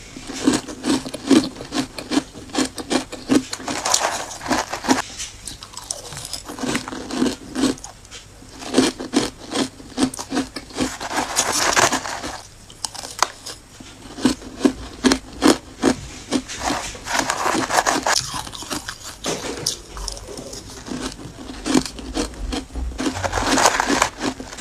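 Crushed ice dusted with matcha powder being bitten and chewed, a fast run of crisp crunches. Every few seconds a metal spoon scrapes and scoops through the ice in the plastic bowl, a longer gritty rasp.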